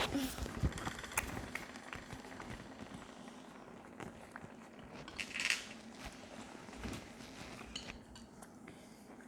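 Faint eating sounds: metal utensils clicking and clinking against dishes in scattered short ticks, with a brief louder burst of noise about five and a half seconds in.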